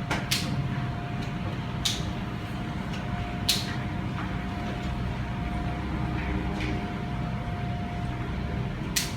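Steady background hum with a thin steady tone, broken by four short sharp clicks or scratches, the loudest about three and a half seconds in.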